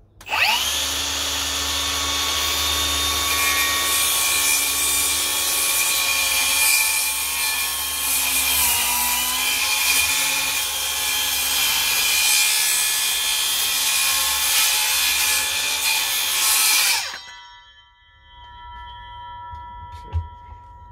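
Milwaukee brushless cordless circular saw starting up and cutting through a block of timber about 3 inches thick at its maximum blade depth, running under load for about 17 seconds with a brief dip in pitch near the middle. Near the end the trigger is released and the blade spins down with a fading whine, followed by a single sharp knock.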